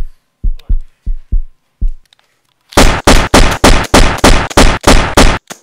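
A heartbeat of paired low thumps, then, a little under three seconds in, a loud burst of rapid gunfire, about four shots a second.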